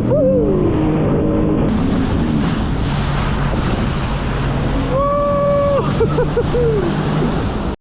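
Jet ski engine running at high revs. Its whine drops as the throttle is eased just after the start and again about six seconds in, with spray and wind rushing over the microphone in between. The sound cuts off suddenly near the end.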